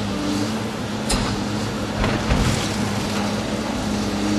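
Hydraulic excavator's diesel engine running steadily under load as its bucket and thumb tear into a brick wall. Brick and masonry crack and crash about a second in and again around two seconds in.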